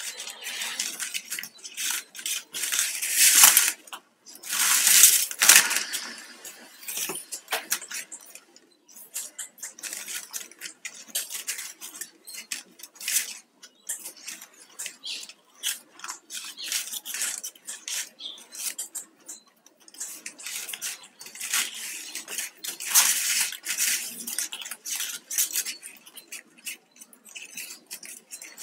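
Flat plastic craft wire strips being handled and knotted close up: rapid clicking and crackling as the strips bend and snap against each other, with longer scraping stretches about three to six seconds in and again just past twenty seconds as strips are drawn tight through the knots.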